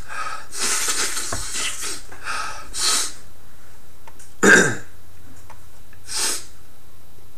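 Short breaths and mouth noises from a person close to the microphone, several times, the loudest a brief burst about four and a half seconds in.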